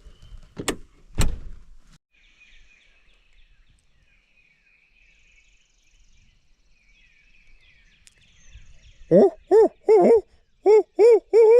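Owl hooting: a rhythmic series of about eight loud hoots, the last one drawn out and falling in pitch. Faint songbird chirping runs before it, and two sharp clicks come in the first seconds.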